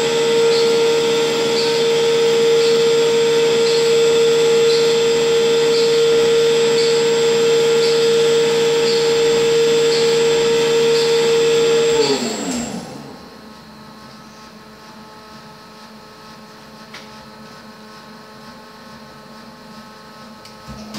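A small electric motor running steadily with a strong hum and a light tick about once a second, then switched off about twelve seconds in and spinning down, its pitch falling. A fainter steady hum remains afterwards.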